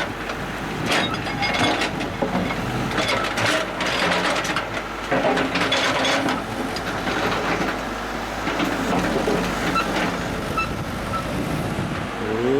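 Bulldozer working earth: its diesel engine running steadily under irregular metallic clanks and scrapes from the tracks and blade.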